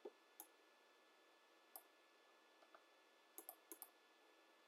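Faint computer mouse clicks: a few single clicks, then a quick run of four clicks about three and a half seconds in, over a very quiet steady background hum.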